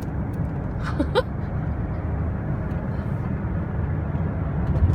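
Steady low road and engine rumble inside a moving car's cabin. About a second in, a brief rising vocal sound from a person.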